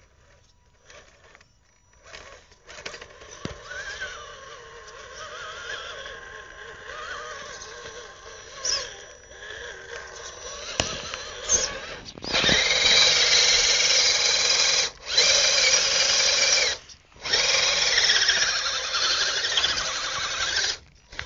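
Radio-controlled mud truck's motor and gears whining under changing throttle as it churns through mud, the pitch rising and falling. About halfway in it goes to full throttle, much louder, in three long bursts broken by two short cuts.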